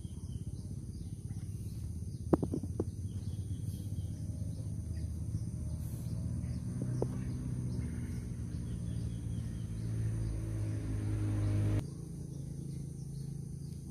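A steady low rumble with a few sharp clicks, about two and a half seconds in and again near seven seconds, from a cat eating rice mixed with wet cat food out of a plastic bowl. The rumble drops suddenly near the end.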